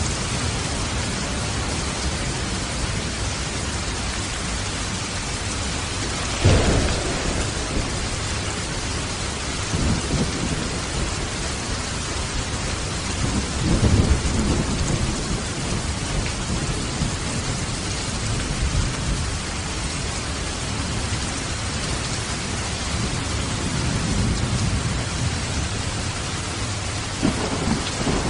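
Steady rain hissing down, with low rolls of thunder: a sudden rumble about six seconds in, further rolls around ten and fourteen seconds, and another near the end.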